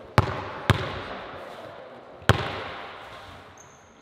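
A basketball bounced three times on a hardwood gym floor, two quick dribbles and then a third about a second and a half later, each bounce echoing in the large gym.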